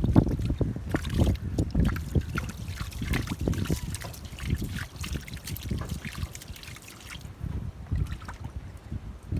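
Water sloshing and splashing in quick, irregular strokes, as of hands or feet working in shallow muddy water, easing off near the end.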